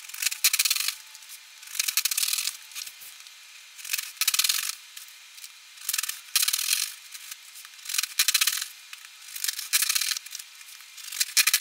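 Knife blade cutting through fiberglass pipe insulation and its white paper jacket along a marked miter line: scratchy cutting strokes about every two seconds, with short pauses between them.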